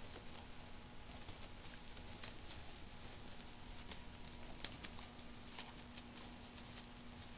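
Five-week-old puppies scampering and tussling with their toys on a blanket: light, scattered pattering and taps of paws and toys.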